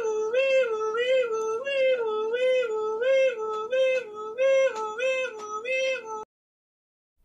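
Two-tone hi-lo ambulance siren, a 'wee-woo' stepping between two pitches about twice a second, cutting off suddenly about six seconds in.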